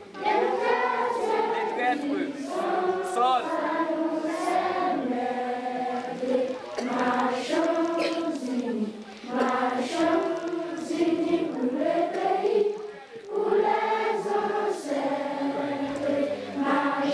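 A large group of children singing together in unison, in sustained phrases of a few seconds each with brief pauses between.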